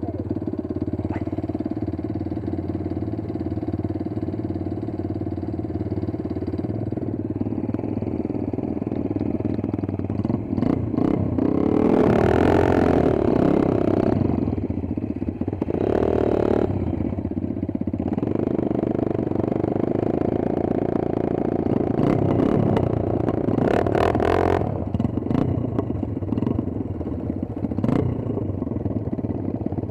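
Small dirt bike engine running continuously, the revs rising and falling, with louder surges of throttle about twelve seconds in and again around sixteen and twenty-four seconds.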